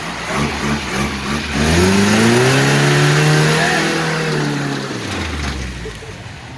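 An off-road vehicle's engine revving up about a second and a half in, held high for a couple of seconds, then dropping back near the end as the driver lets off the throttle.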